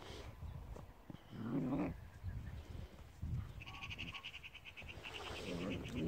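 Two puppies play-fighting, growling at each other in short bouts, one about one and a half seconds in and another near the end. A fast, high-pitched trill runs in the background during the second half.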